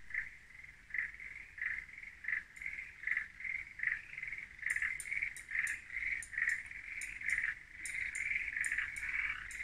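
A chorus of frogs calling steadily, the calls pulsing about twice a second, with faint sharp high ticks joining about halfway through.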